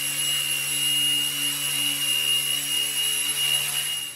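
Small electric RC helicopter, a 1/32 JetRanger scale body on Align T-Rex 150 mechanics, hovering. Its motors and rotors make a steady high-pitched whine with a rushing hiss.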